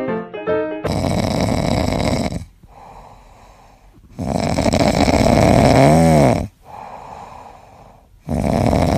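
A Shiba Inu puppy snoring in its sleep: three loud snores about three and a half seconds apart, with quieter breaths between them and a short whistling tone near the end of the middle snore. Piano music stops about a second in.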